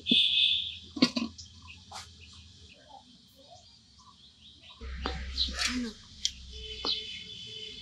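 Small birds chirping and calling outdoors in the second half, over a low rumble; a couple of light knocks in the first two seconds.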